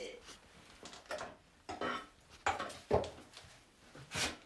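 Several sharp knocks and light clatter of small objects being handled around a wooden lathe bench, as a fallen oil bottle is picked up.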